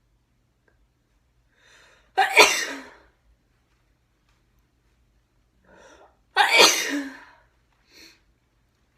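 A woman sneezing twice, about four seconds apart, each loud sneeze preceded by a short, faint intake of breath. A brief faint breath follows near the end.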